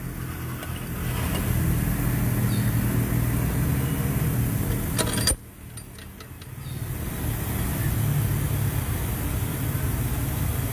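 Steady low rumble of a running vehicle engine. A sharp click comes about five seconds in, the sound dips briefly, then the rumble comes back.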